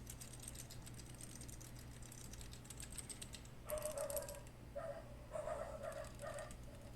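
Royal Kludge RK71 mechanical keyboard with brown tactile switches being typed on rapidly, a dense run of faint key clicks. From about halfway in, a series of short louder bursts comes about twice a second over the typing.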